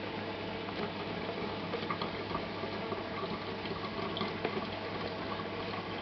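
Washing machine water running and gurgling through the steel kitchen sink's drain, a steady watery noise over a low machine hum, with a few small clicks.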